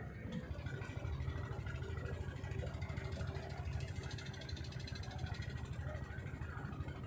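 A small engine running steadily at an even speed, its low, rapid firing pulse continuing without change.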